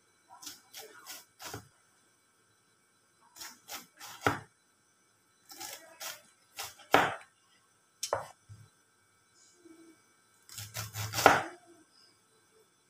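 Kitchen knife slicing cabbage into thin strips on a cutting board: irregular knocks of the blade striking the board in small clusters, the loudest about eleven seconds in.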